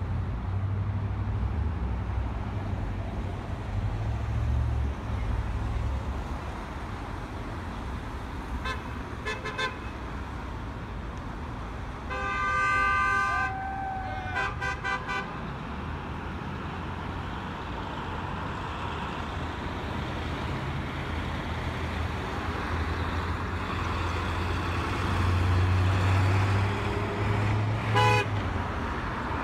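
Road traffic passing with car horns honking: a few short toots, a longer horn blast about twelve seconds in followed by more short toots, and one more toot near the end, over a steady rumble of passing cars.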